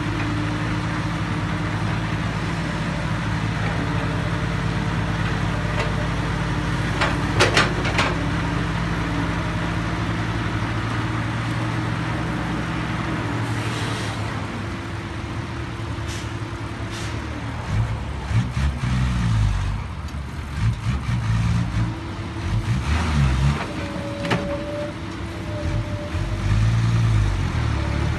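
Heavy diesel engine of a Komatsu PC200 excavator running steadily, with a few sharp metallic clanks about seven seconds in. From about two-thirds of the way through, the engine's pitch rises and falls repeatedly.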